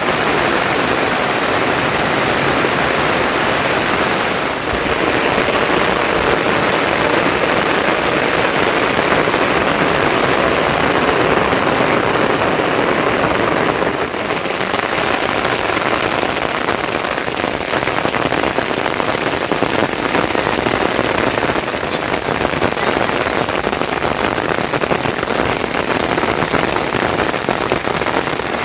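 Steady rain falling and pattering on surfaces: a dense, even hiss that keeps on without a break.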